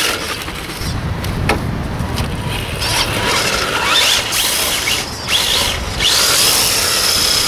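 Radio-controlled car's motor whining as the car drives, the pitch rising and falling about three to five seconds in as it passes close, then holding a steady high whine near the end.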